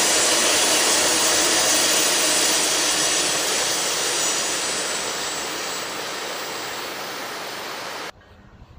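Passenger train rumbling across a steel truss bridge, a steady roar that fades as the last cars move away, then cuts off suddenly about eight seconds in.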